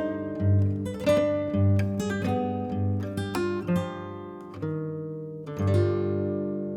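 Background music: acoustic guitar picking and strumming notes and chords, each note ringing out and fading.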